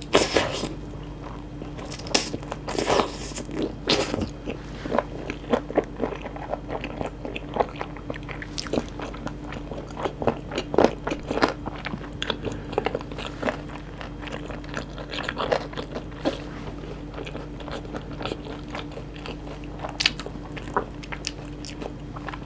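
Close-miked crunching bites and chewing of sauce-glazed Korean fried chicken (yangnyeom chicken), with crisp crackles densest in the first few seconds, then scattered chewing crunches throughout.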